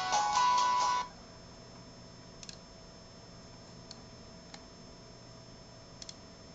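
Guitar music playing through the laptop's speakers cuts off about a second in. A quiet steady hum follows, broken by a handful of faint computer mouse clicks, two of them doubled.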